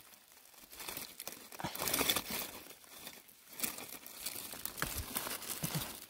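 Dry leaf litter and soil rustling and crinkling as a hand digs around and pulls up the base of a large parasol mushroom's stem, in uneven swells with a few small crackles.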